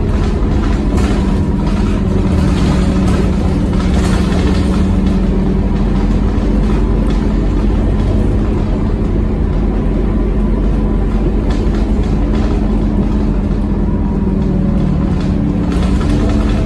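Scania K230UB city bus's nine-litre five-cylinder diesel engine running steadily under way, heard from inside the passenger saloon with road and tyre noise.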